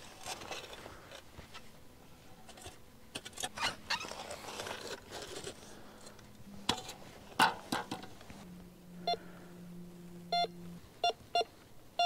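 Metal detector giving short, repeated beeps from about nine seconds in, coming two to three a second near the end, as it is swept back and forth over a buried metal target. Before the beeps there are scattered scrapes and knocks.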